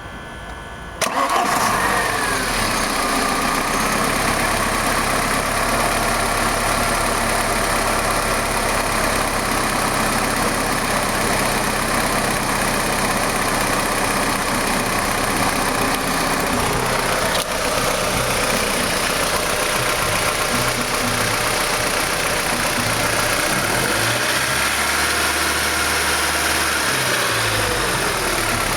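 Ford Sierra 2.0 DOHC four-cylinder engine running at idle, with a strange noise that the owner puts down to the tappets. The sound comes in loud about a second in and stays steady, with a brief change in the engine note a few seconds before the end.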